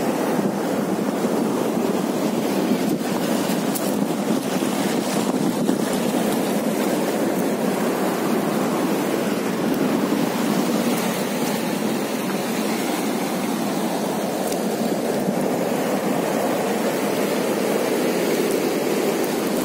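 Sea water washing over rocks at the shoreline, a steady rushing sound.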